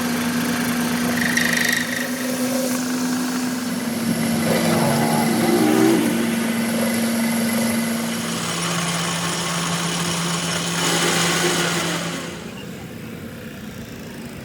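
An engine running steadily; its note drops to a lower pitch a little past halfway, and the sound falls away near the end.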